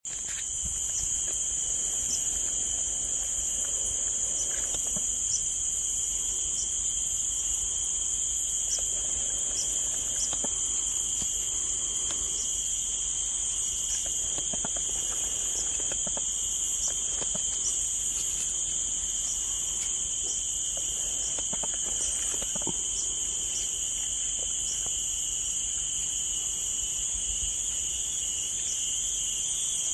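Bornean rainforest insect chorus: a steady, high-pitched drone in several layered bands, with faint scattered clicks and rustles beneath it.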